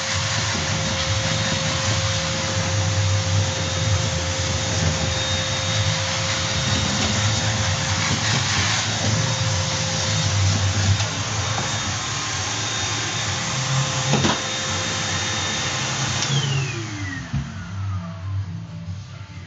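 Cyclonic vacuum cleaner running with a steady whine over a rushing noise. There is one sharp click about 14 seconds in. About 16 seconds in it is switched off, and its motor whine falls in pitch as it spins down.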